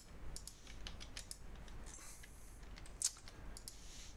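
Faint, scattered clicks of a computer mouse and keyboard, with one sharper click about three seconds in.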